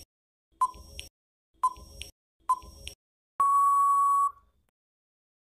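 Quiz countdown timer sound effect: three short beeps about a second apart, then one long steady beep of just under a second marking time up.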